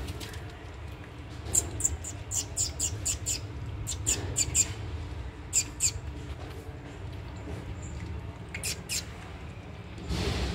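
Puppies lapping and chewing wet food from a steel bowl: quick runs of sharp, wet clicks at about three or four a second, coming and going in short bursts.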